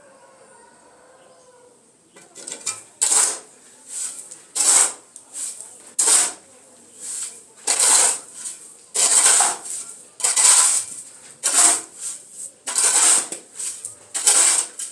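Repeated hard scraping strokes, about one a second, starting about two seconds in.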